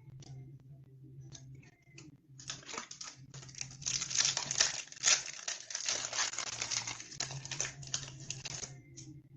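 A Flesh and Blood trading-card booster pack's foil wrapper being torn open and crinkled by hand: a few light rustles, then about six seconds of dense crinkling that is loudest in the middle.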